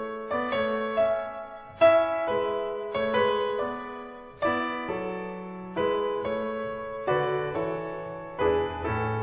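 Background piano music: a slow, gentle melody over chords, each note struck and then fading.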